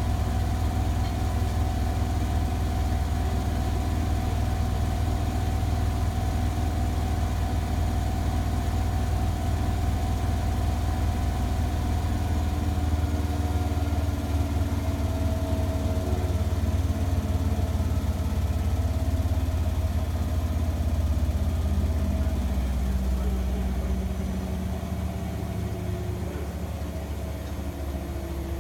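Front-loading washing machine running its final rinse-and-spin cycle: the drum and motor make a steady low hum with a motor whine above it, quietening a little near the end.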